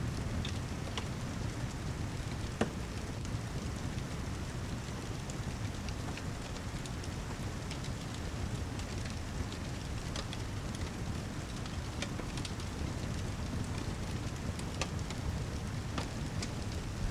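Steady rain mixed with a crackling wood fire: a dense, even hiss with a low steady rumble underneath, broken by scattered sharp pops.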